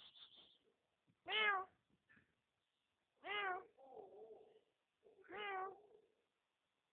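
Kitten meowing: three short meows about two seconds apart, the first the loudest.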